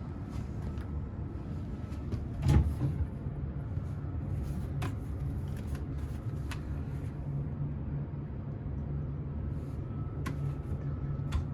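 Steady low hum of the ferry's machinery in a cabin, with a few light clicks and one louder knock about two and a half seconds in, like cabin fittings such as a cupboard or door being handled.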